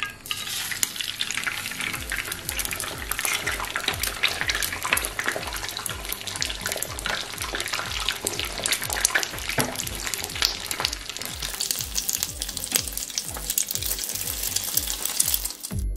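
An egg frying in hot oil in a nonstick pan: dense sizzling and crackling with many small spattering pops, starting suddenly at the outset.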